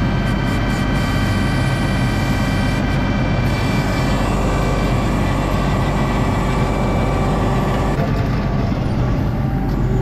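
ASV RT-40 compact track loader running hard, heard from the operator's seat: a steady diesel engine drone with steady higher tones over it. The sound shifts slightly about eight seconds in.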